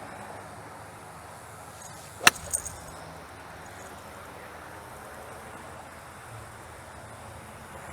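One sharp crack of a golf club, a hybrid, striking the ball about two seconds in, followed by a couple of faint ticks, over a low steady background.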